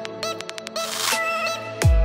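Background music with a beat: quick clicking ticks, then a short hiss about halfway through, and a deep falling bass hit near the end.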